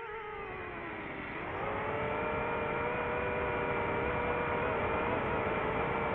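DJI FPV quadcopter's motors and propellers whining. The pitch sinks over the first second and a half as the throttle eases, then rises again and holds steady.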